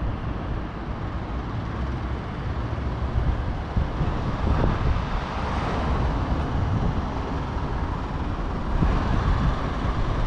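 Outdoor city street ambience: a steady low rumble with a hiss above it, and a couple of faint knocks.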